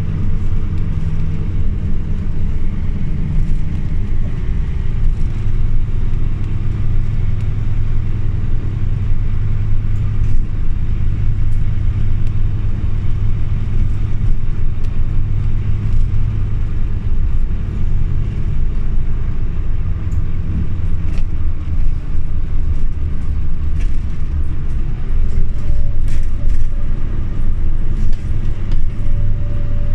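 Scania OmniLink city bus heard from inside while running, a loud, steady low drone of engine and road noise, with a faint higher whine coming in near the end.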